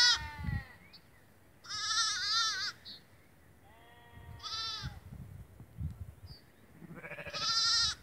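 Shetland sheep bleating: high, wavering bleats about two seconds in, around the middle and near the end, the middle one with a lower, fainter call beneath it.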